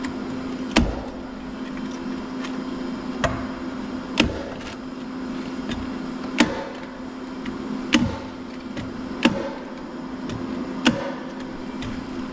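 Sharp knocks and taps on the door and its frame as it is fitted, about seven of them at uneven gaps of one to two seconds, over a steady low hum.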